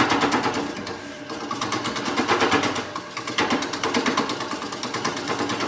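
Turning tool rough-cutting an uneven cherry burl blank spinning on a wood lathe, making a fast, even clatter as the tool strikes the irregular surface each turn. The cut eases off about a second in and again near the middle, then comes back.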